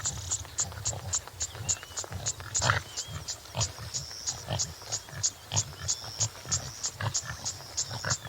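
Topi antelope grunting in short, low, repeated calls, with one louder call about two and a half seconds in. Behind them an insect chirps steadily about four times a second, and small birds call now and then.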